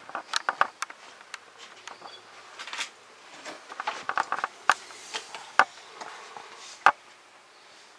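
Scattered light clicks and taps, some in quick runs of several and a few single sharper ones, over faint room tone.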